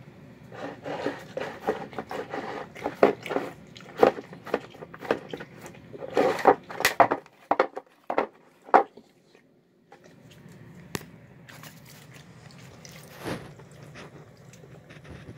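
A dog eating wet food of chicken, green beans and rice from a bowl: quick, irregular chewing and smacking, with sharp clicks of teeth and muzzle against the bowl, for about nine seconds. Then it drops to a faint background with only a couple of isolated clicks.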